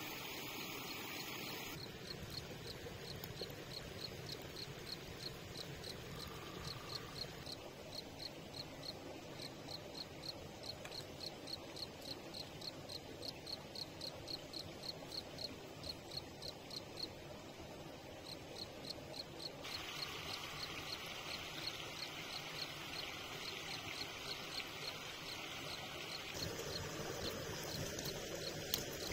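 A cricket chirping in a steady rhythm, about three or four short high chirps a second, over a constant background hum of the woods. The chirping starts about two seconds in and stops about two-thirds of the way through, giving way to a denser high hiss of insects.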